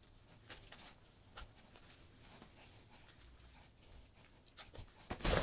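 Faint rustling and a few soft clicks of straps and fabric as a motorcycle knee pad is strapped on over jeans, with a louder rustle starting near the end.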